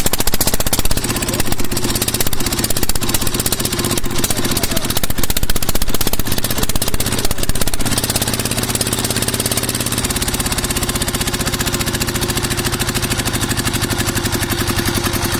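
Small single-cylinder stationary diesel engine running steadily with an even chugging beat, driving a tubewell water pump through a flat belt. Its note shifts slightly about ten seconds in.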